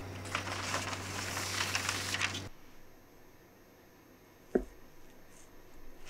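Baking parchment crinkling and rustling as it is laid into a metal baking tin, stopping abruptly after about two and a half seconds. About two thirds of the way through, a single sharp knock as a metal bench scraper is pushed down through the dough onto the wooden board.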